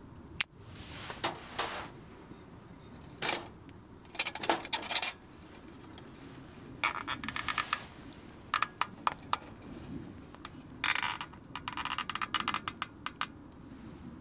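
Light metallic clinks and rattles of camp cookware and utensils being handled, in several short bursts, with one sharp click about half a second in.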